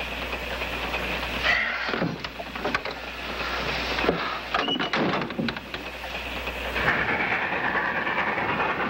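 Steady running noise of a train in motion on the rails, with a few short knocks in the first half. From about seven seconds in the train noise becomes fuller and more even.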